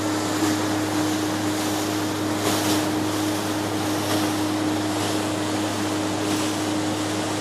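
Steady drone of the boat's own engine, one even hum, under a constant rush of wind and water passing the hull.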